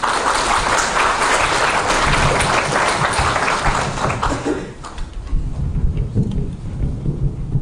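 Audience applauding, a dense patter of many hands clapping that dies away after about four and a half seconds.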